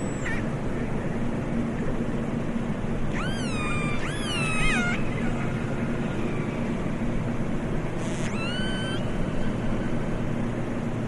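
Killer whale (orca) calls: a few high, meow-like pulsed calls, sweeping up and then curving down, about three seconds in. One more call near eight seconds rises quickly and then holds. A steady low rumble runs beneath.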